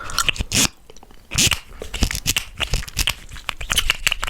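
Chewing gum worked close to the microphone: wet smacks and sharp clicking snaps, with a few louder crackly bursts.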